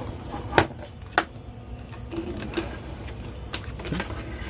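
Sharp clicks and knocks of wires, connectors and parts being handled on a workbench, two loud ones about half a second and a second in and a few fainter ones later, over a low steady hum.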